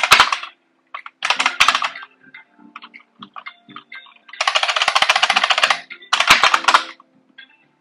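Typing on a computer keyboard in short bursts of key clicks, with a long quick run of presses about halfway through.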